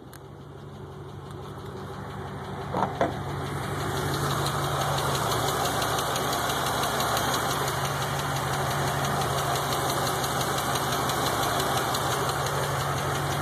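Pontiac Grand Prix GXP's 5.3-litre V8 idling with a fast, even ticking, the unexplained tick the owner is asking about. It grows louder over the first few seconds, then holds steady, with two short knocks about three seconds in.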